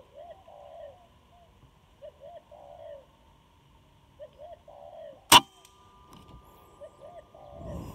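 Spotted dove cooing, a short phrase of coos about every two seconds. About five seconds in comes a single sharp crack of an air-rifle shot.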